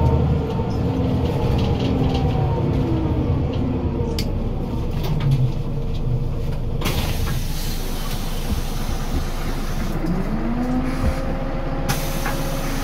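Scania city bus with a ZF Ecomat automatic gearbox, heard from on board. The engine and gearbox whine fall slowly in pitch as the bus slows, and a steady hiss of air comes in about seven seconds in. Near the end the whine rises again and levels off as the bus pulls away.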